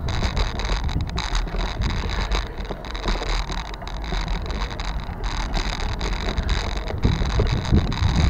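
Wind buffeting the microphone over a steady low rumble from the moving camera, with scattered small knocks and rattles.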